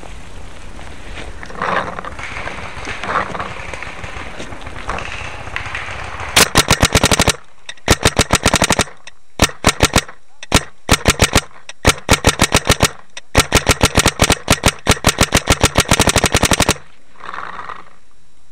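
Paintball marker firing in rapid bursts of sharp shots, about ten a second, starting about six seconds in and running for about ten seconds with short breaks.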